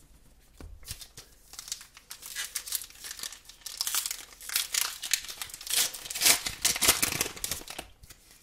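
Foil wrapper of a Pokémon trading card booster pack crinkling and tearing as it is opened by hand, the crackling densest in the second half.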